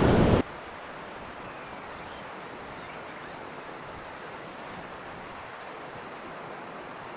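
River water rushing steadily through rapids, an even hiss that does not change. A loud burst of wind and voice cuts off abruptly about half a second in.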